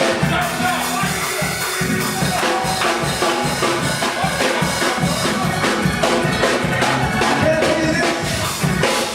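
Live church band music with drum kit keeping a steady beat, organ or keyboard chords over it.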